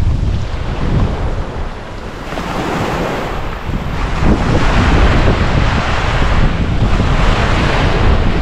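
Ocean surf breaking and washing up the beach, with wind buffeting the microphone. The wash eases off about two seconds in, then swells up louder a couple of seconds later and stays strong.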